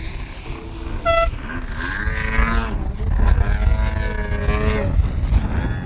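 Petrol engine of a Pilot RC Laser 88-inch aerobatic RC plane, running on MTW tuned pipes, its pitch rising and falling with the throttle in flight, over a low wind rumble on the microphone. A short high beep about a second in.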